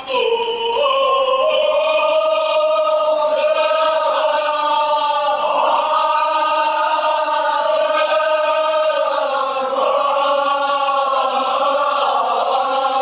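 A group of mourners chanting a Kashmiri marsiya (elegy) together, holding long drawn-out notes that rise and fall slowly.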